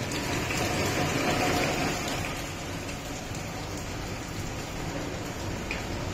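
Steady rain falling on a wet paved yard, loudest in the first two seconds, then easing to a softer, even hiss.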